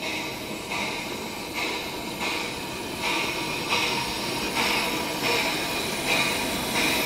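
Small 12-inch gauge steam locomotive running slowly into a station with its carriages, chuffing with a regular beat about every three-quarters of a second that grows a little louder as it draws near.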